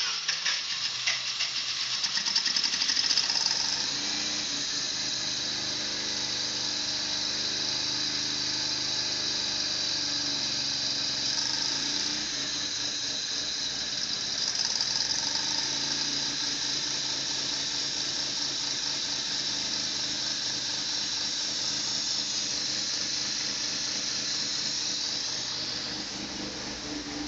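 Mazda RX-7 FD3S twin-rotor rotary engine running at idle just after starting, with a steady high hiss over an uneven low note. The owner suspects a misfire from broken seals.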